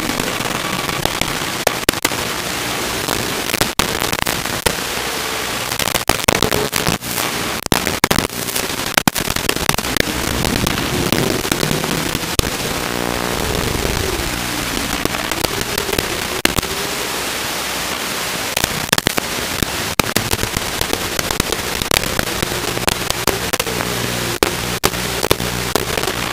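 Crackling static and hiss with dense, irregular pops, the noise on the audio of an analog FPV video feed from a Fly Egg 130 micro quadcopter in flight. A faint whine rises and falls through the middle.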